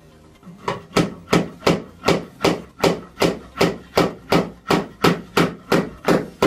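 Claw hammer driving a small nail into a wooden crate frame: about seventeen steady, even blows, roughly three a second, starting just under a second in.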